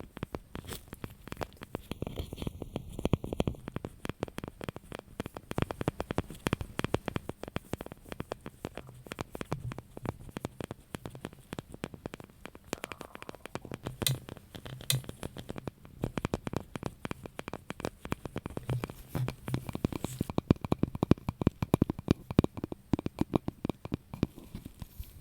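Fingers tapping and scratching on a hard object in a fast, continuous stream of small clicks, a little stronger in the last few seconds.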